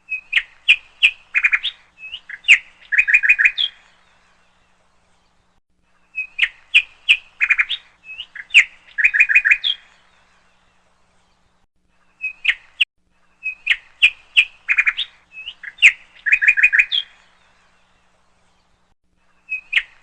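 A bird chirping: clusters of sharp, high chirps and quick trills lasting a few seconds each, with silence between. The same phrase comes back about every six seconds, four times in all.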